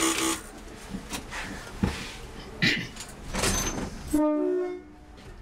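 Class 101 diesel multiple unit on the move, with clatter and knocks in the cab, then a short horn blast about four seconds in, two tones sounding together.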